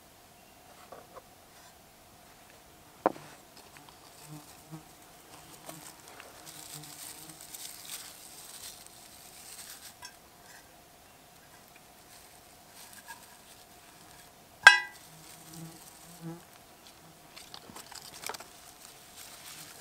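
Flies buzzing on and off close by while hands handle fire-making kit and dry tinder: soft rustling, a sharp click about three seconds in and a louder ringing clink near fifteen seconds.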